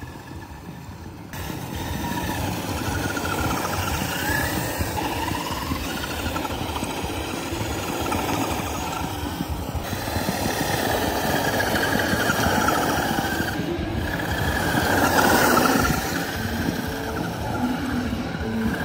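Traxxas Unlimited Desert Racer RC truck driving, starting about a second in. Its electric motor's whine rises and falls over a dense rattling noise, louder for a moment near the end.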